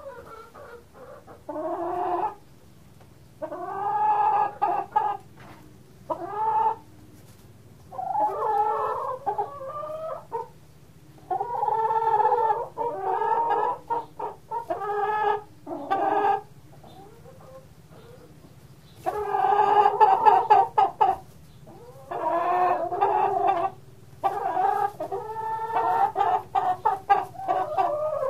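Domestic chickens clucking and calling, a long run of calls each lasting a second or two with short pauses between.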